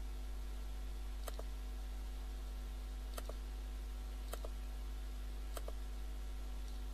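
Computer mouse button clicks: a quick double click about a second in, then three single clicks a little over a second apart, over a steady low hum.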